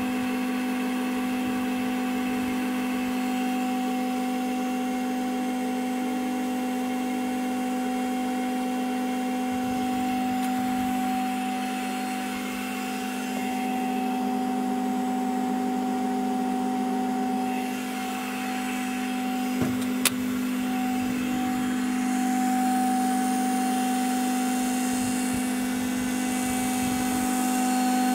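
Asahi-type high-speed tubular centrifuge running at speed, around 15,000 rpm: a steady humming whine that holds one pitch. Two light clicks come about two-thirds of the way in.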